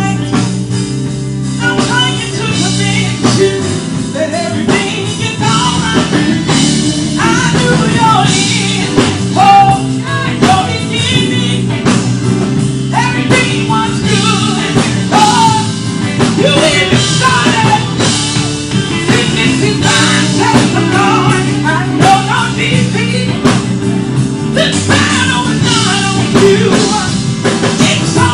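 A women's gospel praise team singing a song, one lead voice out front, over band accompaniment with drums.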